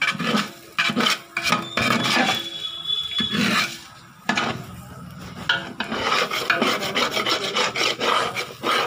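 A spatula scraping through cooked biryani rice against the bottom and sides of a large metal pot as the rice is stirred. It comes as repeated rasping strokes, faster and denser in the second half.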